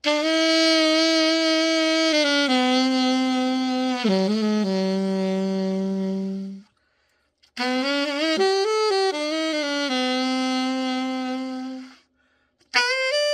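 Yamaha AS-100 alto saxophone, freshly overhauled, being played: slow phrases of held notes that step downward. There is a short break about seven seconds in and another brief gap near the end before a new phrase begins.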